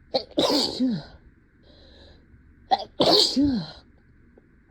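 Two loud human sneezes about two and a half seconds apart, each a sharp burst ending in a voiced cry that falls in pitch, with a faint breath between them. They are part of a sneezing fit.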